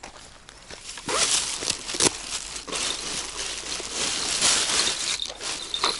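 Rustling and crinkling of fishing tackle in plastic packs being handled and unpacked. It starts about a second in, with a couple of sharper clicks among it.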